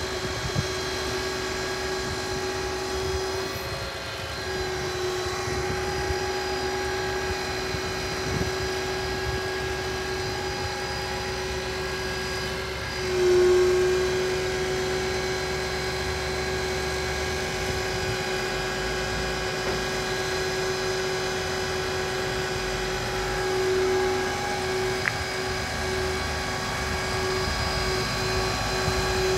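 Scania R490 crane truck running with its loader crane working: a steady hydraulic whine over the engine. The pitch steps up and it gets louder about halfway through as the boom is raised and extended.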